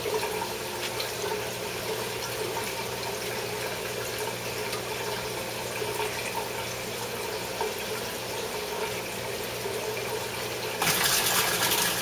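Water bubbling and trickling in an aquaponics fish tank over a steady low hum. Near the end it gives way to a louder gush of water pouring from a PVC pipe into the tank.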